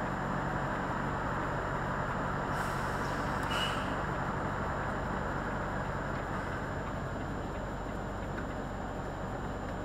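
Volvo FH lorry's diesel engine idling steadily with the truck standing still, heard from inside the cab, with a brief hiss about three seconds in.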